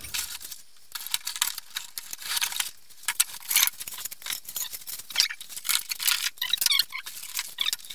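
Plastic packaging crinkling and cardboard rustling as parts are lifted out of a box: a continuous run of irregular crackles and rustles.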